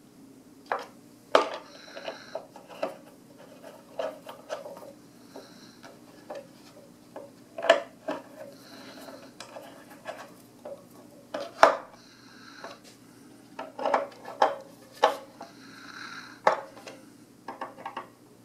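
Screwdriver tightening bolts that fasten plywood seat shells to metal uprights: irregular metal clicks and short rubbing squeaks as the tip turns in the bolt heads, with a couple of louder knocks.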